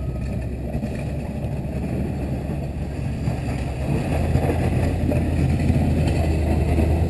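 GMC tow truck's engine running as it pushes snow with a front plow blade, a steady low rumble that gets louder about four seconds in.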